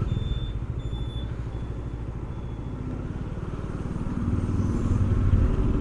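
Motorcycle engine running at road speed with road and wind noise; it grows louder and higher about four seconds in as the bike speeds up.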